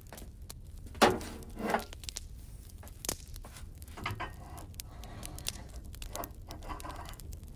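Irregular handling noises: scattered clicks and knocks. The loudest is a sharp knock with a brief ring about a second in, and another follows just before two seconds.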